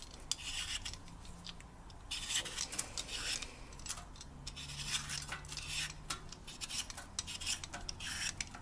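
Joseph Joseph Y-peeler scraping the skin off a raw potato, in runs of quick rasping strokes with short pauses between them.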